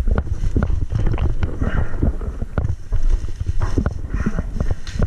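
Irregular knocks, bumps and rustling of clothing and gear close to the microphone, with low rumbling handling noise, as a player climbs up with a boost from a teammate.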